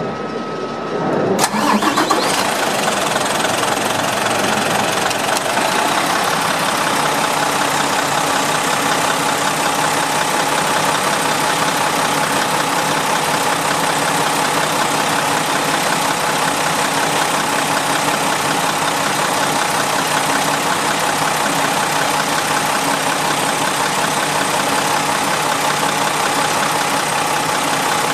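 Hino E13C 12.9-litre inline-six turbodiesel in a Hino Selega coach turning over and catching about a second and a half in, then settling into a steady idle.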